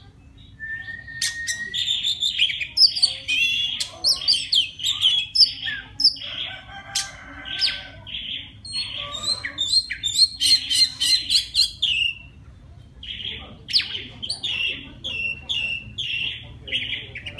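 Oriental magpie-robin singing a long, varied song of quick whistled and chattering phrases, the song a male uses to call a female. It starts with a rising whistle about a second in and pauses briefly a little past the middle before going on.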